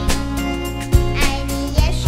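Background music: a melody over a steady drum beat.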